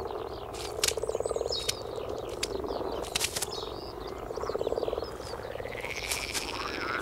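Common frogs (grass frogs) croaking: two low, purring croaks, each under a second, about three seconds apart. Scattered clicks and rustles are heard between them.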